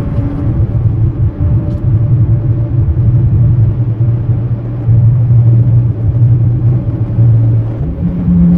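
Truck driving on the road: a loud, steady low rumble of engine and road noise, its pitch stepping up a little near the end.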